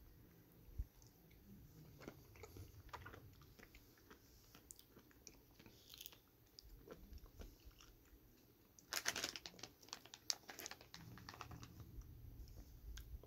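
Faint handling sounds of snack packaging: light clicks and taps of a plastic jelly cup on a wooden cutting board, then about nine seconds in a brief burst of plastic crinkling as the snack bag is set down.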